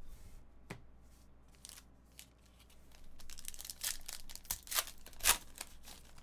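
A foil trading-card pack torn open by hand: the wrapper crinkles and tears, starting about halfway through, with a few sharper rips near the end.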